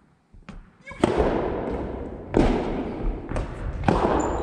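Soft tennis rally: a rubber soft-tennis ball struck by rackets and bouncing on a wooden gym floor, a series of sharp hits starting about a second in, each ringing on in the hall's echo. A brief high shoe squeak comes near the end.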